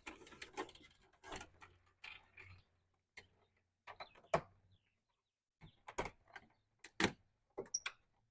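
Scattered light clicks and taps of plastic door-trim and switch parts being handled, with a few sharper clicks in the second half.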